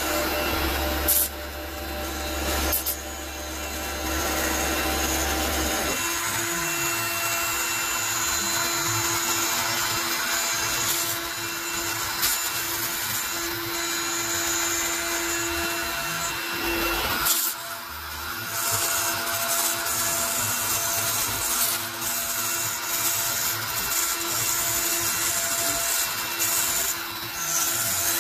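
CNC router spindle at 18,000 rpm driving a single-flute upcut spiral bit through 3/8-inch cast acrylic: a steady machine whine over the hiss of cutting. A low hum drops out about six seconds in.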